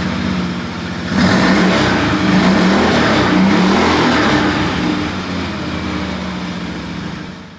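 An engine revving, its pitch rising and falling, louder from about a second in and easing off toward the end.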